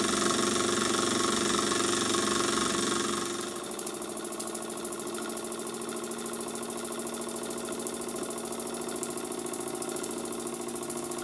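Burnac Vulcan model steam engine running under steam with a fast, even beat and a steam hiss. The hiss is loud for about the first three seconds, then drops away, leaving a quieter steady running beat.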